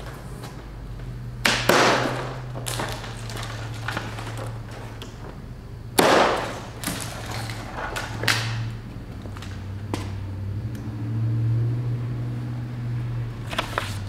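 Cardboard packaging of a boxed refrigerator being cut and pulled open: sudden scraping, rustling bursts of cardboard, the loudest about 6 s in, with a few lighter handling noises. A steady low hum runs underneath.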